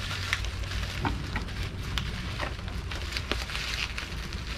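Plastic packing wrap crinkling and crackling in quick, irregular clicks as it is handled and pulled off a small ceramic pot.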